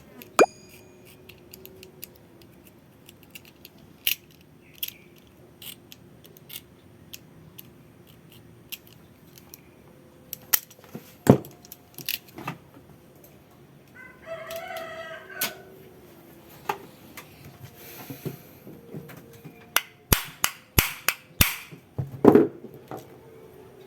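Scattered sharp clicks and knocks from parts and tools being handled, coming thicker near the end. A rooster crows once in the background a little past the middle.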